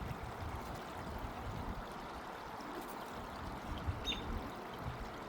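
Steady trickle of running pond water.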